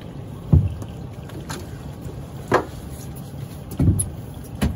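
Trap line being hauled hand over hand over a boat's gunwale, with a few sharp knocks, the loudest about half a second in, over a steady low rumble.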